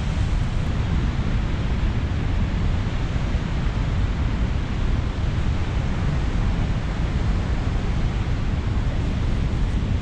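Steady rushing roar of Chitrakote Falls, mixed with wind buffeting the microphone, heaviest in the low end.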